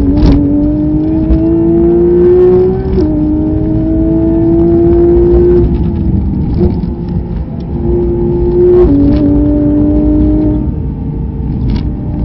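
Race car's engine heard from inside the cockpit at full throttle, climbing in pitch through the gears with sharp drops at upshifts about 3 s and 9 s in. It backs off near the end as the car slows, over loud road and wind rumble with a few sharp clacks.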